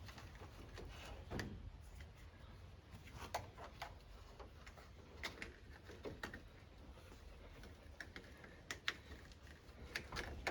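Faint scattered clicks and light knocks at irregular intervals, the sound of battery-charger clamps and cables being handled and hooked up to a tractor battery.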